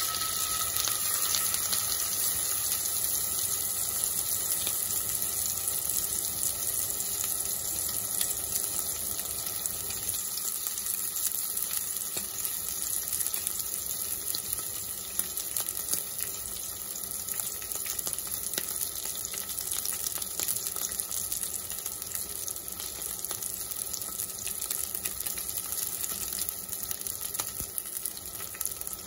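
Salmon fillet sizzling and crackling in hot oil in a cast-iron skillet, a dense steady hiss that eases slightly after about ten seconds.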